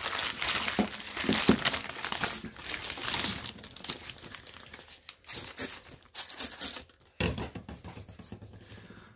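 Newspaper wrapping crumpling and rustling as a stone is unwrapped by hand, dense crackling at first, then sparser rustles. There is a dull thump about seven seconds in.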